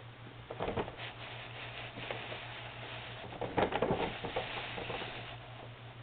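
Paper bag crinkling and rustling as a kitten shifts and scrabbles about inside it, with louder bouts of crackling about half a second in and again about three and a half seconds in.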